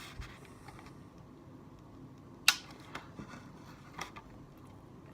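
Mostly quiet, with a few small clicks and taps from a person eating a piece of jam-filled sponge roll by hand. The sharpest click comes about two and a half seconds in.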